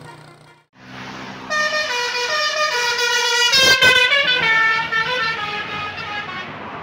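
Basuri telolet bus horn, a multi-tone air horn, playing a melody of stepped notes for about five seconds, loudest a little past the middle, over the bus engine's low hum.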